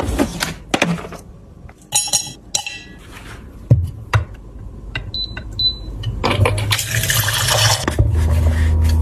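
Containers clattering and clinking in a kitchen drawer, a few short beeps from a digital faucet's touch panel, then water running from the tap into a stainless steel tumbler for a couple of seconds, followed by a low hum near the end.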